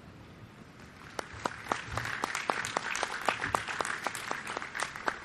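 Crowd applauding: scattered claps start about a second in and thicken into steady applause from many hands.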